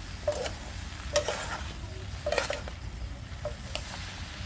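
A spoon or spatula stirring and scraping bitter gourd frying in a pan, with a sizzle under it. The scraping strokes come about once a second over a steady low rumble.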